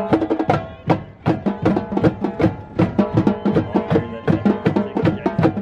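Marching tenor drums (quads) played fast, quick runs of strikes moving across several drums tuned to different pitches.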